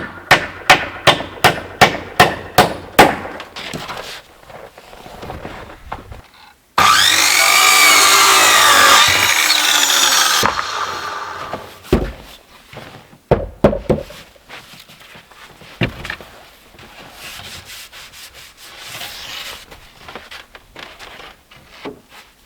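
A hammer driving nails into wood with about ten quick, even strikes, then a power saw cutting through a board for about four seconds, its pitch rising and falling under load, followed by scattered knocks of wood being handled.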